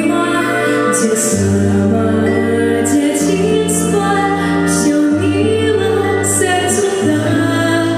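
Song with female singing over long, sustained bass notes that change about every two seconds.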